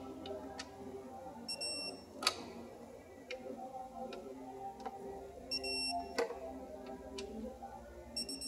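Torque wrench tightening the intake manifold bolts of a Ford 3.0L V6 to 89 inch-pounds: short bursts of high beeping, each followed by a sharp click, twice about four seconds apart.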